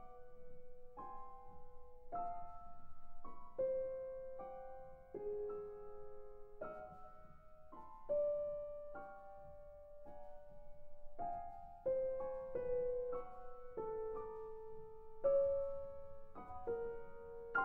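Solo piano playing slow contemporary classical music: single notes and chords struck at irregular intervals, about one a second, each left to ring, mostly in the middle register.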